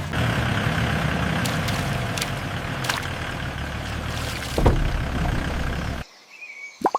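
High-pressure washer running and spraying, a steady rumble with hissing spray and a single louder knock partway through. It cuts off suddenly about six seconds in, leaving a few drips.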